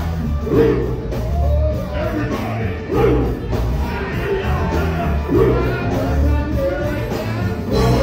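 Live funk band playing with several singers on microphones, their voices singing and shouting over a heavy, pulsing bass and drum beat.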